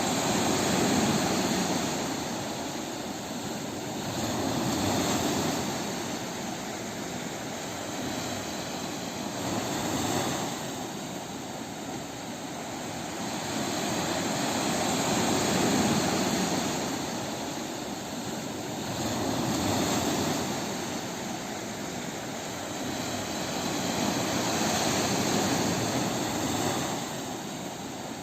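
Ocean waves breaking on a beach: a continuous wash of surf that swells and falls back about every four to five seconds.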